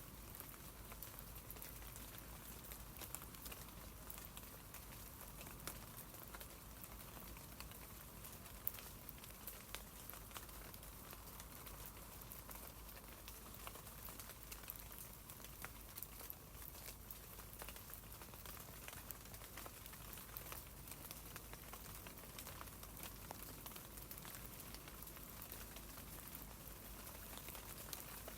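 Rain falling on tree leaves: a steady soft hiss dotted with the ticks of individual drops.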